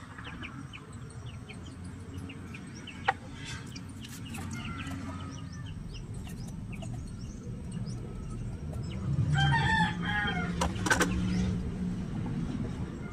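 A rooster crows once, about nine seconds in, over a steady low hum. A few sharp clicks or knocks come about three seconds in and again near the end.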